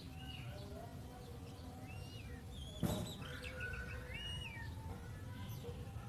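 Oriental magpie-robin singing short whistled phrases and chirps, with one sharp knock about three seconds in.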